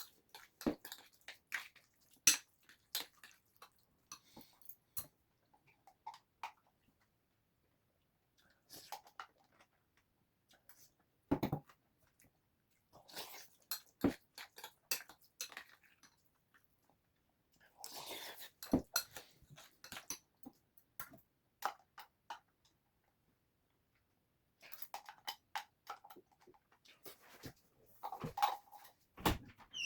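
A person eating, sped up to double speed: chewing and mouth sounds mixed with sharp clicks and taps, coming in scattered bursts with short quiet gaps.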